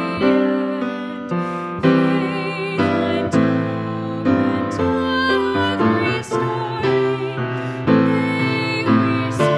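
A woman singing a hymn into a microphone, her held notes carrying vibrato, with piano accompaniment.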